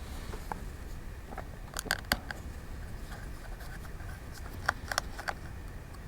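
Light, sharp clicks and taps of small precision tools on the opened iPhone 5 as its tiny screws are removed. A few come around two seconds in and another few around five seconds in, over a steady low hum.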